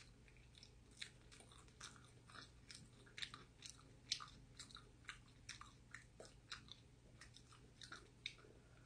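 Close-miked chewing of pizza: quiet, crisp mouth clicks and small crunches, about two or three a second, one louder crunch about four seconds in.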